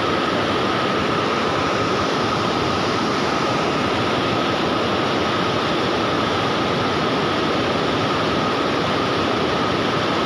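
Water spilling over a stepped river weir, a steady, even rushing with no change in level.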